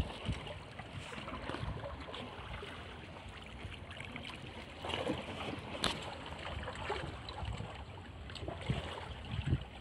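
Small sea waves lapping and washing against shore rocks, with uneven wind rumble on the microphone. A single sharp click comes about six seconds in.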